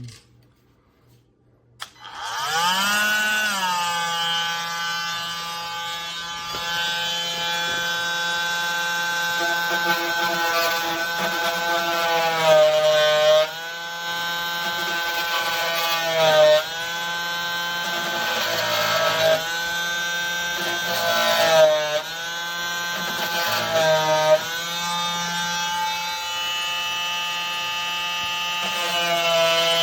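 Cordless oscillating multi-tool (KIMO 20V) starting up about two seconds in and sawing into a wooden door jamb, with a steady whine whose pitch dips briefly several times during the cut.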